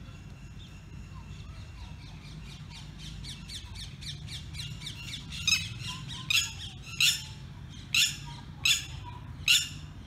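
Red-wattled lapwing calling: a run of quick repeated notes that speed up, then six loud, shrill calls in the second half, about one every three-quarters of a second.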